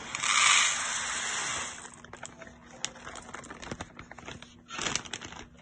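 Dry glutinous rice poured from a measuring cup, a hissing rattle of grains for about two seconds, then small clicks and a second, shorter pour near the end.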